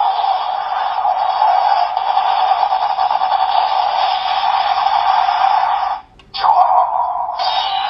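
Ultraman Gaia transformation-device toy playing its sound effects through its small built-in speaker, thin with no bass, cutting out briefly about six seconds in.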